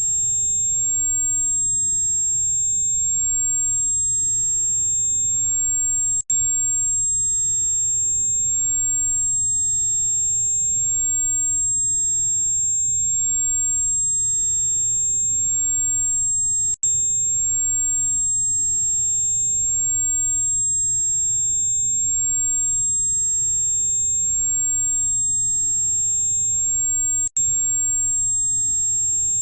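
Electronically generated tinnitus relief tone: a steady, very high-pitched pure tone with fainter tones alongside it, over a low hum. It cuts out for an instant three times, about ten seconds apart.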